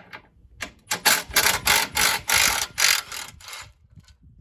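Ratchet wrench clicking in a quick run of short strokes, about four a second, while bolts are worked during a winch install.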